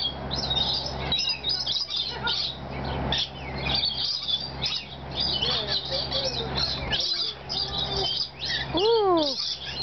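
A flock of rainbow lorikeets chattering: a dense run of short, shrill chirps and squawks, with one louder rising-then-falling call near the end.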